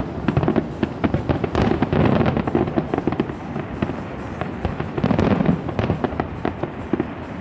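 Fireworks display: a dense, unbroken run of bangs and crackling from many shells bursting over one another, swelling louder about two seconds in and again past the five-second mark.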